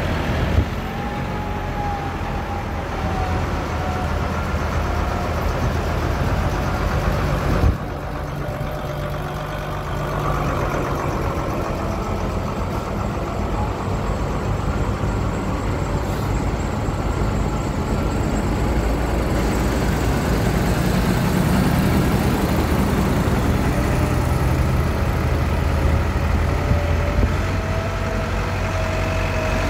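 A line of diesel farm tractors, among them a Claas and a red International, driving past one after another with their engines running steadily and engine and transmission notes rising and falling as each goes by. There are two short sharp knocks, the louder about eight seconds in.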